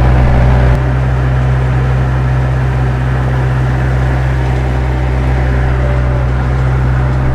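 Vehicle engine running steadily just after starting, a constant low hum that eases slightly about a second in.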